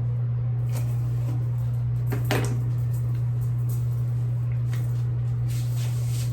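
A steady low hum with light rustling and small clicks over it, the loudest a short rustle a little over two seconds in.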